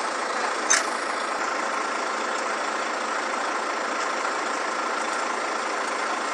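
Fire truck engine running steadily, with a single sharp metal clank about a second in as the aluminium ladder is handled.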